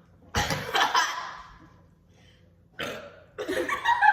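A person burping loudly once, about half a second in. It is a long belch that lasts about a second and trails off.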